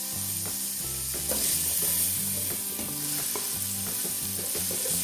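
Chopped garlic sizzling in hot oil in an aluminium pot while a wooden spoon stirs it.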